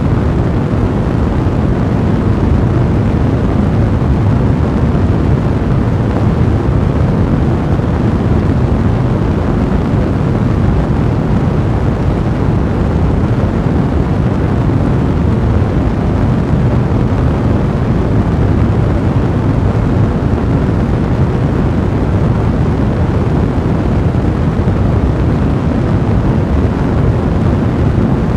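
Fireplace fire blazing: a steady, deep rushing noise of burning that holds even throughout, with no sharp crackles standing out.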